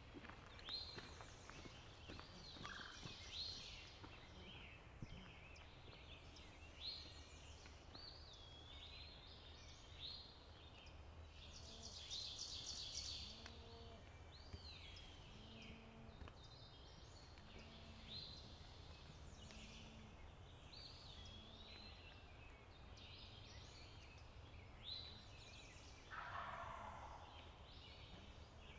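Faint songbirds singing, with a wild turkey gobbler gobbling once near the end: a rapid, rattling call about a second long.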